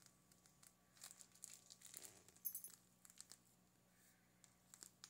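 Faint crinkling and scattered soft crackles of a plastic piping bag being squeezed in the hand as whipped cream is piped out.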